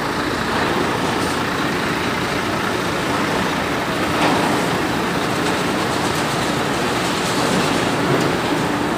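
Steady mechanical drone with a faint low hum, from machinery in a cement plant's truck bag-loading bay.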